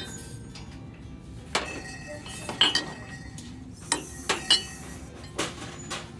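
Ceramic mugs clinking against one another and the metal shelving as they are handled, about eight short, sharp clinks with a brief ring, the loudest near two and a half and four and a half seconds in.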